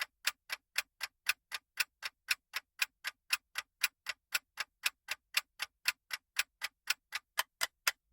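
Countdown timer sound effect: a clock ticking steadily, about four ticks a second, as the quiz's guessing time runs down.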